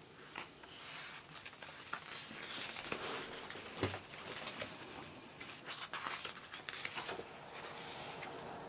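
Pages of a large hardback photo book being handled and turned: glossy paper rustling and sliding under the hands, with a sharper soft thump about four seconds in.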